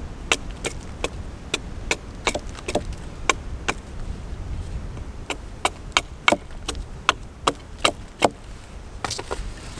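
Small hatchet striking a green wooden stake braced against a log: quick, sharp knocks of wood on wood, about two a second and unevenly spaced, with a short pause near the end.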